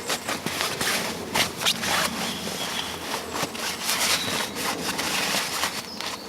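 Irregular rubbing and scraping strokes of hands working with camp gear or wood, uneven in pace rather than a steady rhythm.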